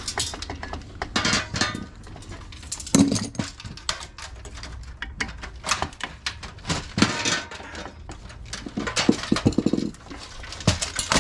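Irregular metallic clinks, knocks and rattles of hand tools working apart scrap electronics such as a circuit board and its heat sink.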